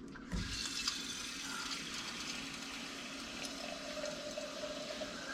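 Water running from a kitchen tap, turned on with a knock about half a second in and then flowing steadily.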